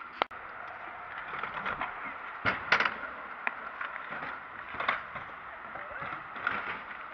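Freestyle scooter wheels rolling over concrete, with a sharp click just after the start and a few short clatters of scooter decks and wheels on the ground, the loudest between two and three seconds in.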